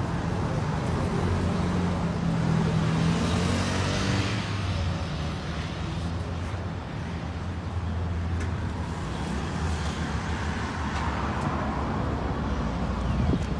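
Road traffic: motor vehicles running and passing by, with a steady low engine hum and a couple of swells as vehicles go past.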